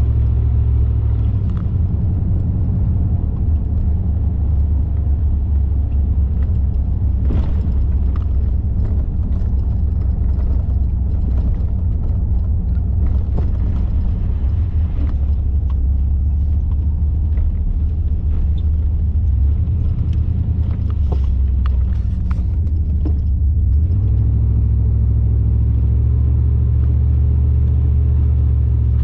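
A car driving at steady speed: a loud, steady low rumble of engine and road noise, with scattered faint clicks and rattles.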